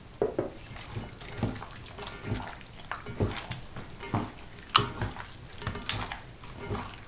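Hands mixing raw pike pieces with salt and bay leaves in a stainless steel bowl to marinate them: irregular wet squelches and light knocks of fish against the metal, with one sharper knock about two-thirds through.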